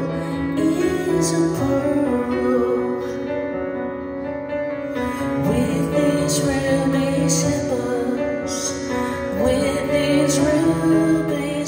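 A slow, tender song played live on grand piano, with a woman singing over it, heard from the audience.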